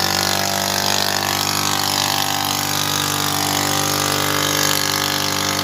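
Small outboard motor on an inflatable boat, running steadily at an even pitch.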